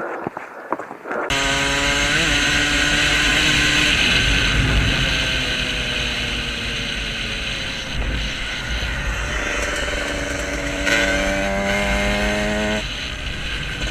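Dirt bike engine running hard at a steady speed, heard from the rider's helmet camera with a rushing noise behind it. The engine note shifts about eleven seconds in and again shortly before the end.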